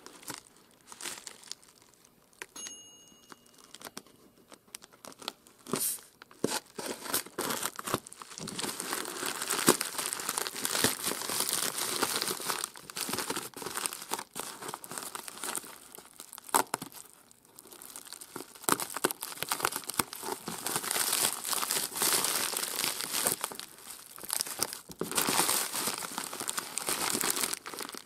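Plastic shipping mailer being slit with a craft knife and pulled apart by hand, the plastic crinkling and tearing, with an inner plastic bag rustling. A few scattered clicks in the first seconds, then steady crinkling from about eight seconds in.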